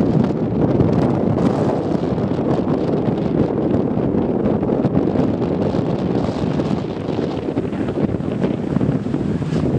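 Strong wind buffeting the microphone: a loud, steady rumbling rush that swells and eases with the gusts.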